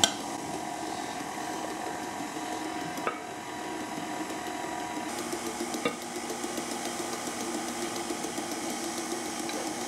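KitchenAid 5-quart stand mixer running steadily, its motor humming as it beats cake batter, with two faint clicks about three and six seconds in.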